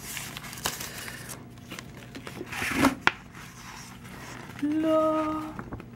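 Rolled paper poster being handled and unrolled: rustling of stiff paper, swelling about three seconds in and ending in a sharp snap. About five seconds in, a woman's voice holds a short drawn-out 'ooh'.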